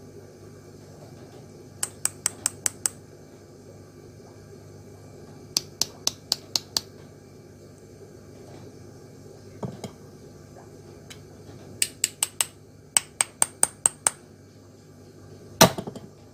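Large 1000 µF 50 V electrolytic capacitor's aluminium can tapped in the hands, in quick runs of five or six sharp, ringing metallic clicks at about five a second. A duller knock comes a little after the middle and a louder one near the end.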